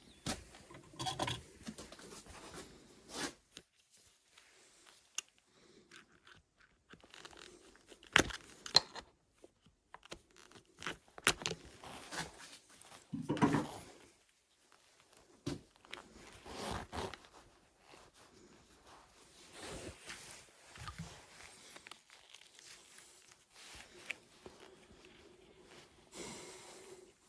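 Irregular scraping, tearing and knocking sounds of hand work on an old axe, with a few sharp clicks about eight and eleven seconds in.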